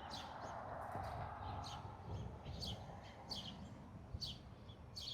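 A bird chirping over and over, a short high chirp roughly every three-quarters of a second, over a faint low background rumble.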